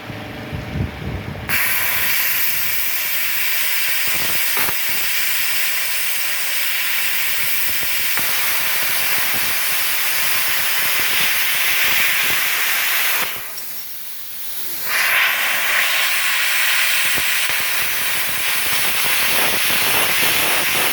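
Multipro CUT 45G SB air plasma cutter cutting 2 mm steel plate: a loud, steady hiss of the arc and compressed air. It starts about a second and a half in, cuts out for a moment about two-thirds of the way through, then resumes.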